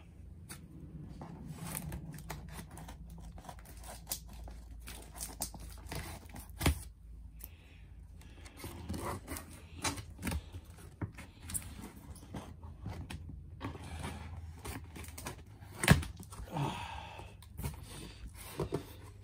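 Scissors slitting the packing tape along the seam of a cardboard box, with scraping and rustling of the cardboard and a few sharp knocks, the loudest near the end as the flaps are opened.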